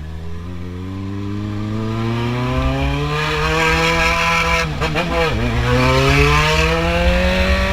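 Yamaha XJ6 inline-four engine through an aftermarket 4-into-1 exhaust, accelerating with its pitch rising steadily, dropping briefly about five seconds in as it shifts up a gear, then rising again. The exhaust note is loud.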